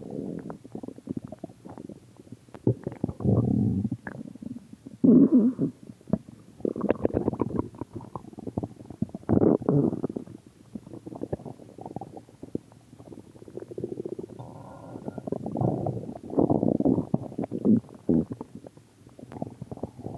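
A person's stomach growling: irregular gurgling rumbles, one after another with short gaps, with louder surges about five, ten and sixteen seconds in.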